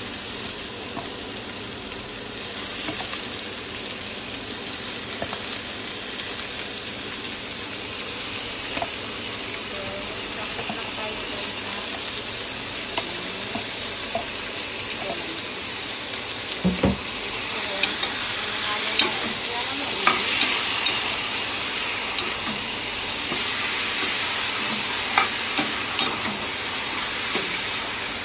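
Raw chicken pieces sautéing with onion and garlic in oil in a pot, sizzling steadily. The sizzle gets louder about halfway through, with scattered sharp knocks and clicks as the pieces are dropped in and moved around in the pot.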